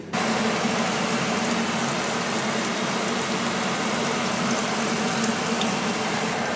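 Onion pakodas (onion bhaji) sizzling steadily as they deep-fry in hot oil in a frying pan, with a steady low hum underneath.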